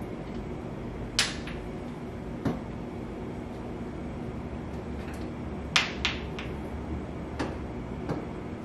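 Metal clinks and clicks from an All-American pressure canner's cast aluminium lid and wing-nut clamps being shifted and set by hand while the lid is evened out, about six sharp taps spread over the seconds, the loudest a quick pair near the middle, over a steady low hum.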